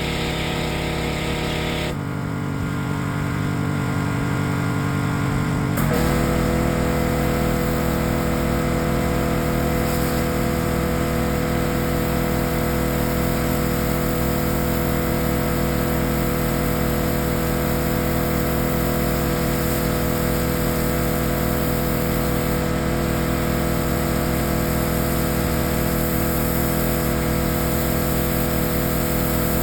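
Pressure washer's small engine running steadily. Its sound drops back about two seconds in, then picks up again with a new steady note about six seconds in and holds.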